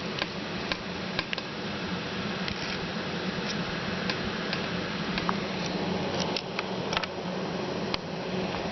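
Small, scattered plastic clicks and snaps from an HP Pavilion dm4 laptop's screen bezel being worked loose by hand, irregular and a second or so apart, over a steady background hum.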